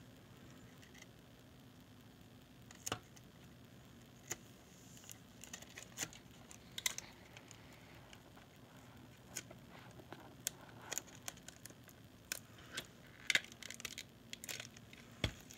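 Adhesive tape being pulled and pressed down onto a floppy drive by hand: scattered small clicks, crinkles and taps, a dozen or so spread across the stretch.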